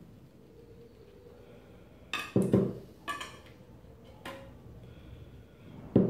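Hand snips cutting thin sheet metal for a capacitor plate: about five short, sharp metallic snips, a pair about two seconds in, then one near three seconds, one near four and one at the end.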